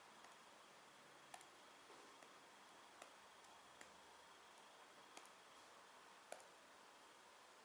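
Near silence with a few faint, irregularly spaced clicks, about six in all.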